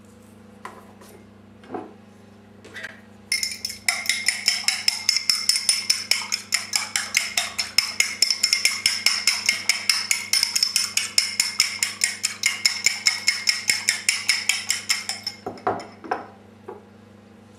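Egg being beaten with a fork in a ceramic bowl: a fast, even clatter of the tines against the bowl. It follows a few single knocks, starts a few seconds in and stops about two seconds before the end.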